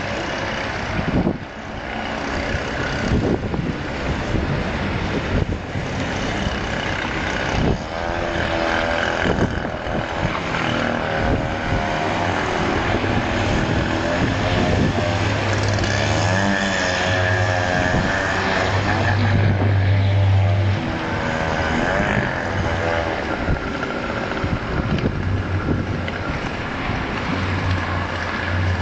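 Steady wind noise buffeting the microphone. A droning, wavering hum comes and goes through the middle and again near the end.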